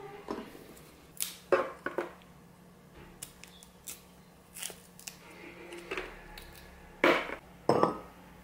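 Chestnut shells being cut and pried off with a small kitchen knife: irregular scraping and cracking clicks, with shell bits dropping, and a few sharper clicks about a second and a half in and again near the end.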